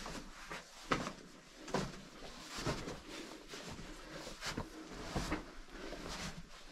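Footsteps crunching in snow on a rock tunnel floor, a step about every second.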